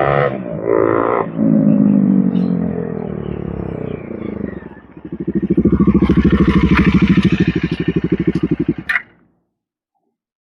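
Bajaj Dominar 400's single-cylinder engine through an SC Project slip-on exhaust, riding past with its pitch falling as it goes by. About five seconds in a second loud stretch of pulsing exhaust note follows, which cuts off suddenly near the nine-second mark.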